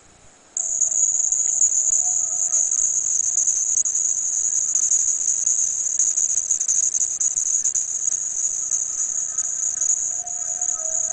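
A steady high-pitched shrill trill starts about half a second in and holds on without a break. Faint soft tones sit underneath it around two seconds in and again near the end.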